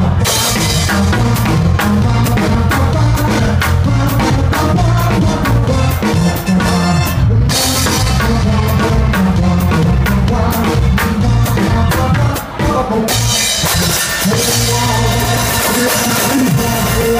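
Loud live band music led by a drum kit played close up, a steady beat of drum and cymbal hits over electric keyboard.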